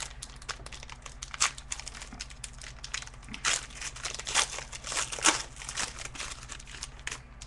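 Plastic packaging crinkling and tearing as a box of trading cards is opened and its pack unwrapped by hand: an irregular run of crackles with a few louder crinkles.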